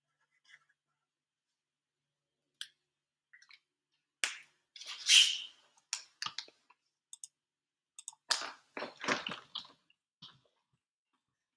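Scattered small clicks, taps and rustles of a pen and notebook being handled close to the microphone, with a longer rustle about five seconds in and a quick run of clicks near the end.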